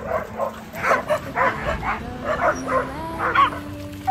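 Staffordshire terrier puppies barking and yipping in play, about seven short, sharp barks coming in quick succession.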